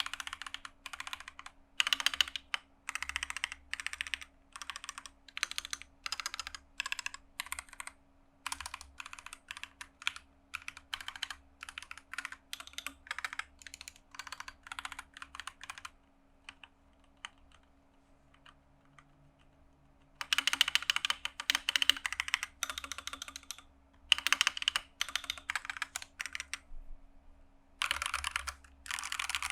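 Akko 3068B mechanical keyboard with Akko Jelly Black linear switches: keys stabbed in short runs of sharp clicking presses. After a few seconds' pause, dense loud bursts of many keys mashed at once.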